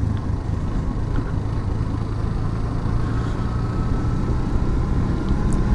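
Yamaha FZS V3 motorcycle's 149 cc single-cylinder engine running steadily as the bike rolls downhill, with a steady low rumble of wind and road noise.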